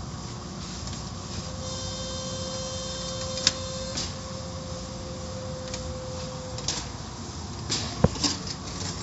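Automatic tunnel car wash heard from inside the car: a steady wash of water spray and cloth strips over the body, with a faint steady whine through the middle. Sharp knocks mark strips slapping the glass, the loudest about eight seconds in.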